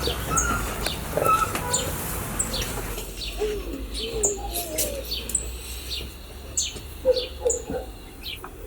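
Birds chirping: a quick scatter of short, high, falling chirps, with lower warbling calls in between.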